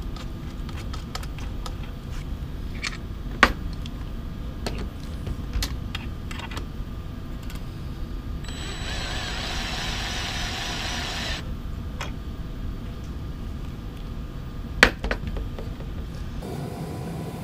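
A cordless drill runs for about three seconds near the middle, driving a screw through the printer's build plate. Sharp metallic clicks come from a wrench on the fastener under the plate, two of them loud, over a steady low rumble.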